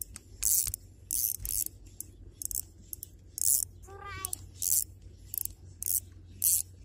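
Spinning reel being cranked against a fish on the line, giving a short sharp rasp roughly every half second to second as the handle turns and the rod stays bent under load.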